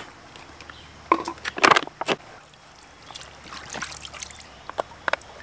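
Water sloshing and splashing in a small clear plastic container as it is tipped and dipped in shallow river water, with a few short splashes and light knocks, loudest a second or two in.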